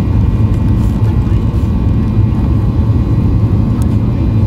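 Cabin noise of a Boeing 737-800 taxiing: a steady low rumble with a faint, steady whine from its CFM56-7B engines at low thrust.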